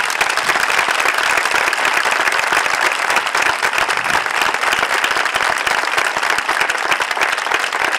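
A crowd applauding, many hands clapping in a dense, steady patter.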